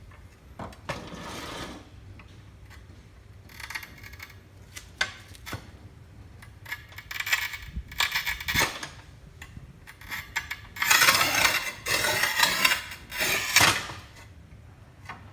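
Manual tile cutter in use on ceramic tile: several scraping strokes of varying length, the longest and loudest near the end, with short clicks and clinks of hard tile between them.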